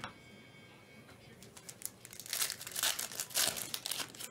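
Plastic trading-card pack wrapper crinkling and tearing as the pack is ripped open, a dense run of crackles that swells in the second half.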